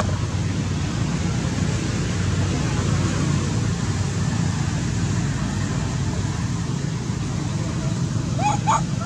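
Steady outdoor background rumble and hiss. Near the end come three short, upward-sliding animal calls.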